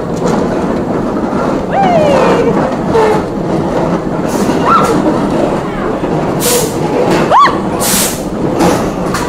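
Loud fairground din: a steady mix of crowd and ride machinery noise, broken by short hissing blasts of air and a few brief rising-and-falling squeals, the sharpest about seven seconds in.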